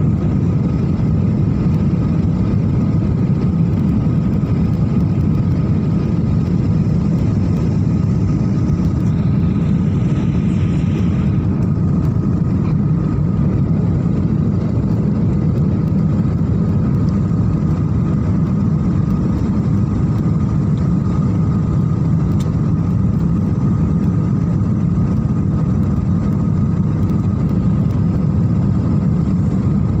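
Steady low rumble of an airliner cabin in flight: engine and airflow noise with a faint steady tone above it, and a brief soft hiss about a third of the way in.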